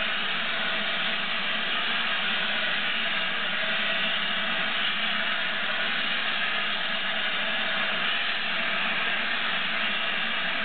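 Gresley A4 Pacific steam locomotive standing with steam up, hissing steadily with escaping steam over a faint low hum.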